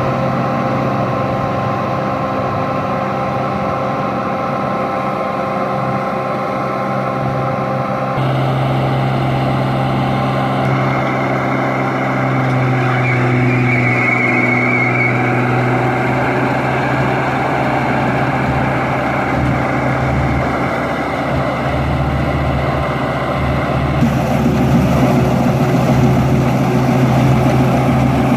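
Combine harvester engine running steadily with a low, even hum. The sound changes abruptly about a third of the way in and again near the end.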